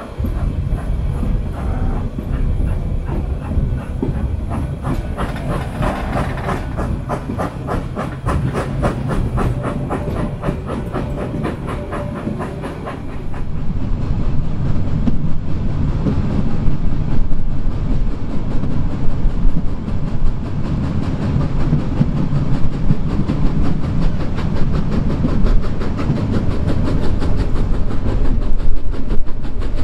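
Narrow-gauge steam train heard from aboard its coaches. For the first half the locomotive's exhaust beats are regular and quicken as it gets under way, with a hiss of steam. About halfway through the sound changes to the train running: a louder steady rumble of the coaches with wheels clattering over the rails.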